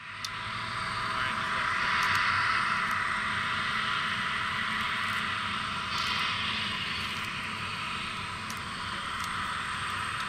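Steady turbine hiss from an Antonov An-124-100 on the stand, swelling a little about two seconds in.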